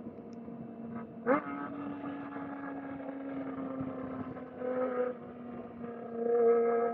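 Kawasaki ZX-4R's inline-four engine running at high revs while riding. Its pitch jumps up sharply about a second in, then holds nearly steady, and it gets louder again near the end as the throttle opens.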